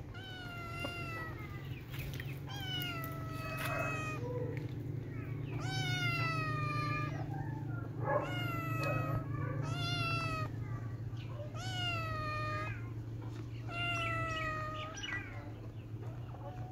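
Kitten meowing over and over: about eight long meows, each rising sharply and then sliding down in pitch, a second or two apart, over a steady low hum.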